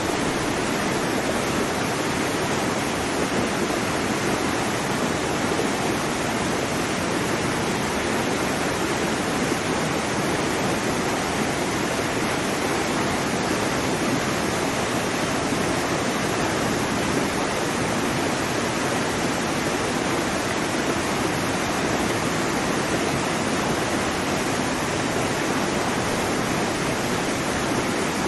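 Waterfall rushing steadily: a constant, even roar of falling water with no breaks.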